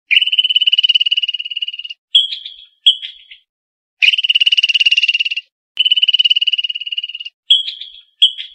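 High, buzzy pulsed trills from a calling animal: three long trills of one to two seconds each, with short chirps that fade quickly in between.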